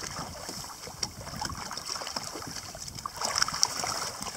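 Sea water lapping and sloshing around a sit-on-top kayak, with small splashes and drips as a tope shark is hauled out of the water by hand.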